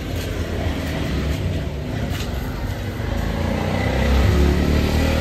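A motor vehicle engine running close by amid street noise, growing louder about four seconds in.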